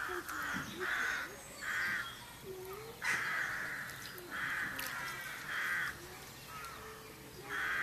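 A bird calling over and over: about seven short calls, each under half a second, with one longer call about three seconds in.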